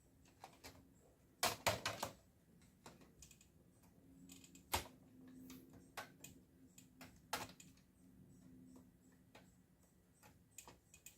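Scattered clicks and taps of plastic and metal as a drive and its SATA cables are handled and pushed into place inside a desktop PC case: a quick clatter of clicks about a second and a half in, then single sharp clicks near five and seven seconds.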